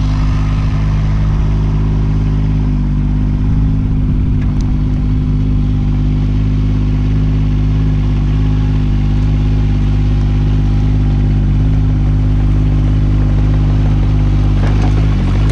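Kubota K008 mini excavator's newly fitted diesel engine running steadily, smooth and without knocking. The engine note shifts slightly about two and a half seconds in.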